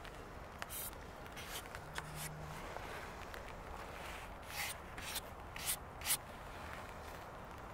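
Several short scratchy rubbing sounds, bunched closest together in the second half, over a quiet background.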